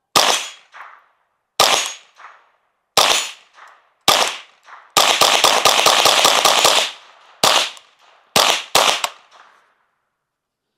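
Unsuppressed Ruger 10/22 .22 rimfire rifle firing: four shots about a second apart, a fast string of rapid fire lasting about two seconds, then three more quick shots. Each shot is followed by a short echo.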